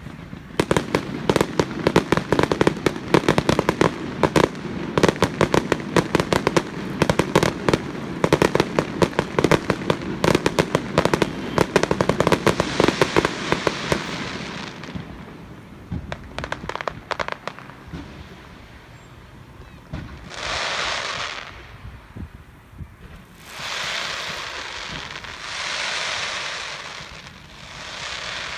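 Fireworks going off in a rapid, dense run of cracks and bangs. It thins out and stops about halfway through, and a few short swells of noise follow.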